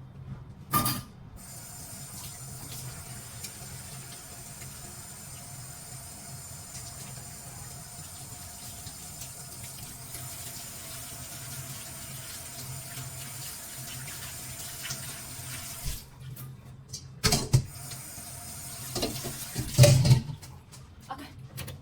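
Kitchen tap running steadily for about fifteen seconds, then turned off; a few knocks follow near the end.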